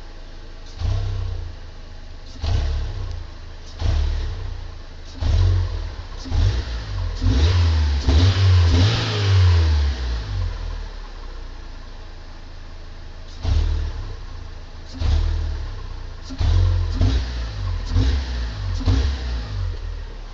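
Stock 2011 Fiat Punto Evo's 1.2-litre eight-valve four-cylinder engine, warm, idling and revved in a series of short throttle blips. About seven seconds in comes one longer, higher rev that falls back to idle. After a few seconds of idle, several more quick blips follow near the end.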